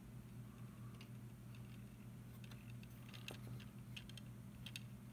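Faint, scattered clicks of plastic Lego pieces being handled, over a steady low hum.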